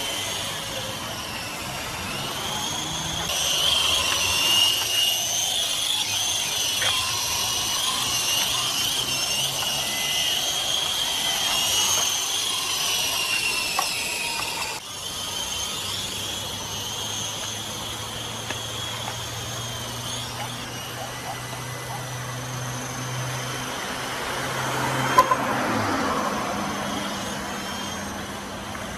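FS Blast coaxial RC helicopter's electric motors and rotors whining high and wavering in pitch as it is flown. A louder swell of noise with a short knock comes a few seconds before the end.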